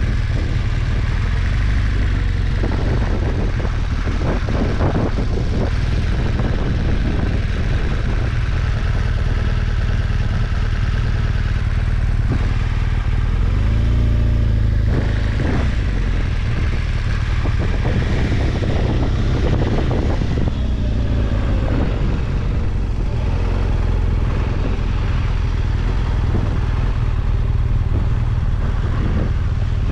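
BMW R1200GS boxer-twin engine running at low speed while the bike is ridden slowly, with the revs rising and falling briefly a couple of times midway.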